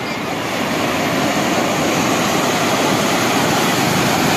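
Sea surf: small waves breaking and foamy wash running up the sand close by, a steady rushing that swells a little about a second in.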